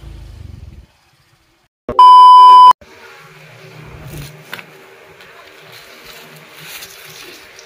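A loud, steady electronic beep lasting under a second, after a motorcycle engine's rumble cuts off and a moment of dead silence. Then comes faint rustling of a plastic sack being handled over a faint steady hum.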